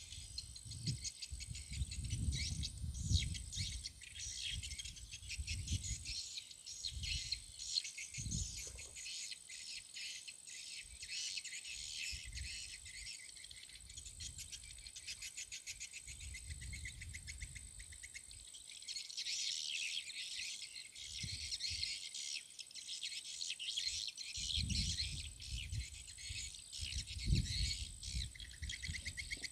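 A dense chorus of insects chirping and trilling rapidly and without a break, with a steady high whine over it. Uneven low rumbling comes and goes underneath.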